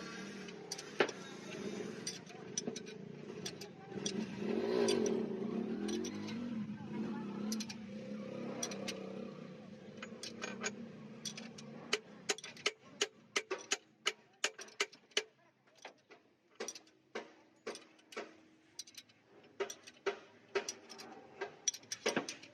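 Engine-workshop work: a steady mechanical hum whose pitch rises and falls for a few seconds, then, from about halfway, a run of sharp clicks a couple of times a second, like a hand tool working on engine parts.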